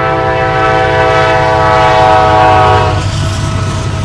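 Diesel freight locomotive's multi-chime air horn sounding one long blast for a road grade crossing, over the low rumble of the diesel engines. The full chord cuts off about three seconds in, leaving one lower note and the engine rumble.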